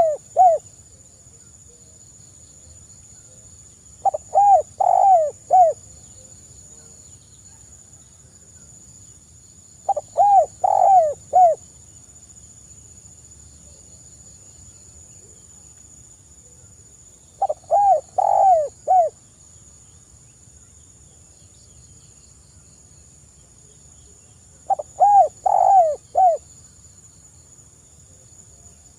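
Spotted dove cooing: short phrases of three or four low coos, repeated about every six to seven seconds.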